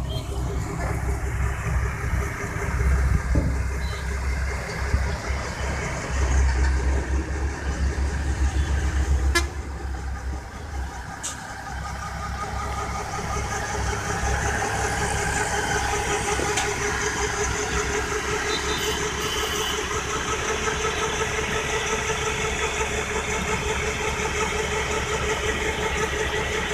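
Tractor's diesel engine running with its PTO turning a tractor-mounted centrifugal water pump. A heavy, uneven low rumble for the first ten seconds, then a steady drone.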